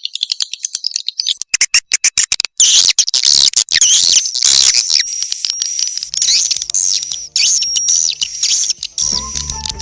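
Recorded swiftlet call sound of the kind used to lure swiftlets into a swiftlet house. It starts with a fast run of clicks, then dense overlapping high chirps and twittering trills.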